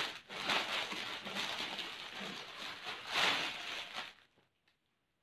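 Plastic packaging crinkling and rustling as a folded kurti is handled and taken out, with a louder surge about three seconds in; the sound cuts off suddenly after about four seconds.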